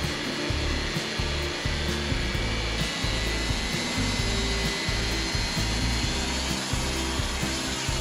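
Background music with a bass line that changes note every fraction of a second, over the steady running noise of a Wood-Mizer LT40 portable bandsaw mill.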